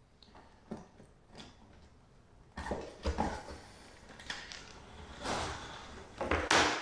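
Flexible cable-fishing rods being drawn up through a hole drilled in a chipboard floor: light clicks and knocks at first, then from about two and a half seconds in a louder scraping and rustling as the rod and line slide against the edge of the hole.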